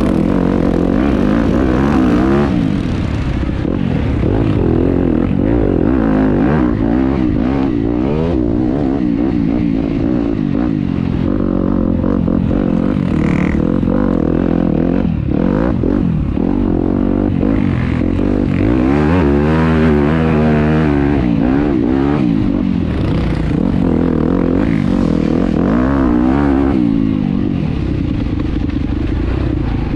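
Enduro dirt bike engine running under way, its revs rising and falling constantly with the throttle, with a wide swing up and down about two-thirds of the way through.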